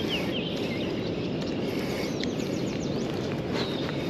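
Steady rush of flowing river water, with birds chirping repeatedly over it.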